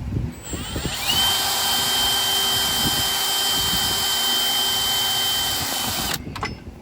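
A handheld power tool spins up with a rising whine and then runs steadily at high speed, with a loud hiss, for about five seconds before cutting off suddenly near the end.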